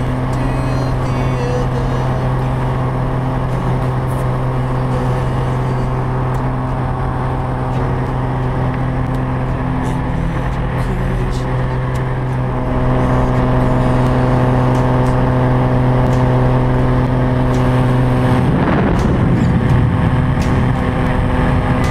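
Single-engine light aircraft's engine and propeller droning steadily, heard from inside the cabin during the climb. It gets a little louder about halfway through, and near the end the even hum gives way to a rougher rush of wind and engine noise.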